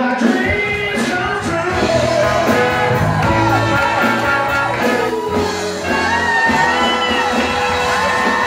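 Live rock-and-roll band playing, with singing.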